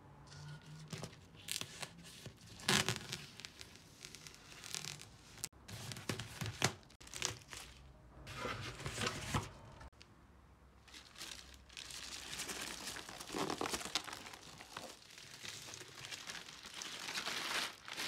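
Wrapping being torn and crumpled off new car tyres: irregular rips and crinkling, with the sharpest tears about three and seven seconds in.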